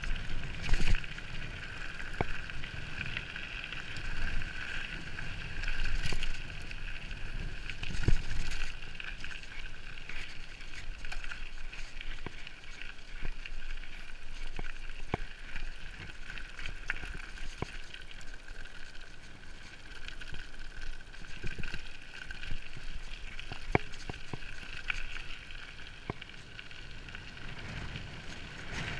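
Mountain bike rolling fast along a lane, heard from a rider-mounted action camera: wind buffeting the microphone in gusts, tyre and drivetrain noise with a steady high buzz, and scattered rattling clicks as the bike goes over bumps.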